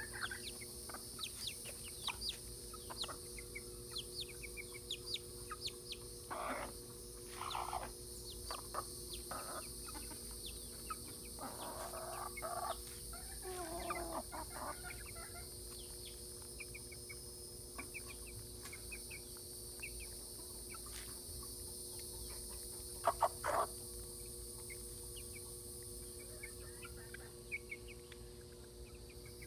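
Silkie chickens clucking in short, scattered calls while feeding, with a louder burst of clucks about three-quarters of the way through.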